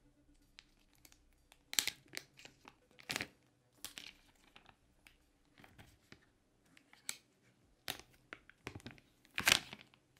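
Clear protective plastic film being peeled off the back of a smartphone: irregular crackling and rustling, loudest about two seconds in, about three seconds in and near the end.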